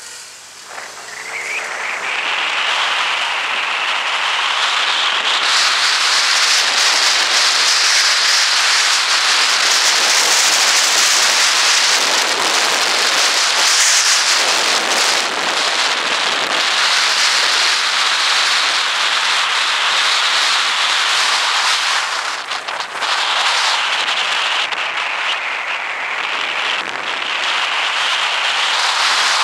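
Motorcycle pulling away from a standstill, its engine note rising over the first couple of seconds, then loud, steady wind noise buffeting the microphone at riding speed that drowns out the engine, easing briefly once near three-quarters through.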